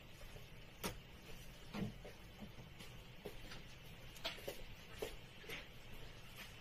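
Ink brush writing on rice paper: a few faint, scattered taps and light scratches as the strokes are made, over a steady faint room hum.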